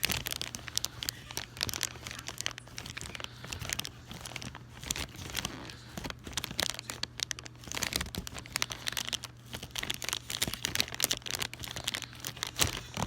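Dense, irregular crinkling and crunching close to the microphone, a rapid stream of small crackles that goes on throughout.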